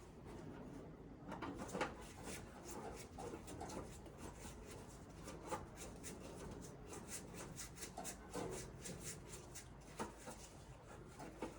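Scattered light clicks, taps and rustles of hands handling parts at a gas water heater, with no steady machine sound standing out.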